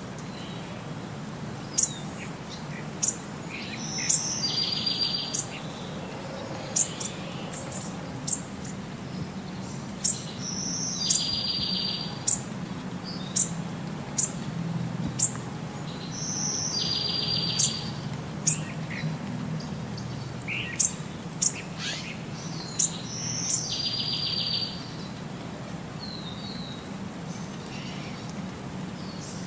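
Outdoor bird calls: many short, sharp, high chirps, with a buzzy call of about a second repeating every six or seven seconds, over a steady low hum.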